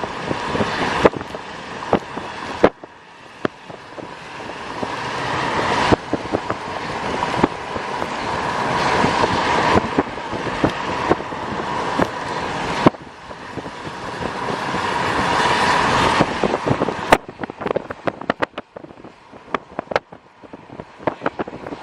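A car driving in a thunderstorm: a rushing noise that swells and breaks off abruptly three times, with many sharp taps striking the car.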